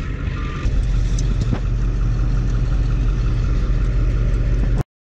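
Ambulance engine running with a steady low rumble as the vehicle moves off, with one short high reversing beep in the first second. The sound cuts off abruptly just before the end.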